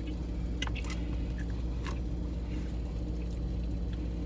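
Steady low hum of air conditioning, with a few faint clicks and smacks of eating in the first two seconds.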